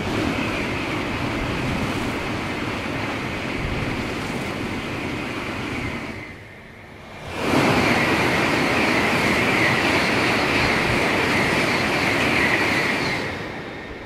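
Two Shinkansen high-speed trains pass one after the other on an elevated viaduct. The first gives a steady rushing noise. After a short lull about six and a half seconds in, the second comes through louder, with a strong hiss, and fades near the end.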